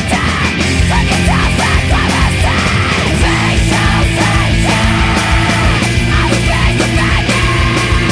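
Loud post-hardcore rock recording: distorted electric guitars, bass and drums playing continuously.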